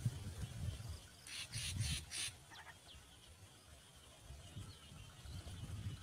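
Nestling bird begging: a quick run of about four short, harsh, high-pitched rasps about a second in, followed by a few faint thin chirps, over a low rumble.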